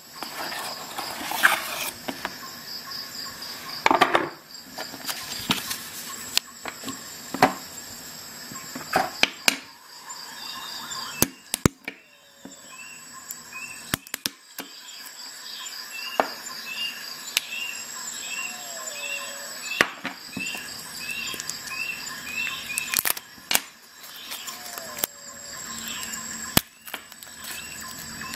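Handling and unpacking noise: a cardboard box handled, a folding knife cutting open the plastic packaging of AAA batteries, and the batteries rustled and clicked between fingers, giving many scattered sharp clicks and taps. Faint high chirps repeat about once a second through the middle stretch.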